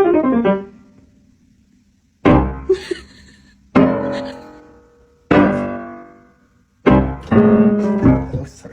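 Piano music: four chords struck about a second and a half apart, each ringing and fading, after a near-quiet opening couple of seconds.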